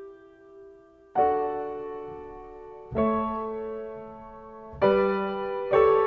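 Slow background piano music: after a soft first second, a new sustained chord is struck about every two seconds and left to ring and fade.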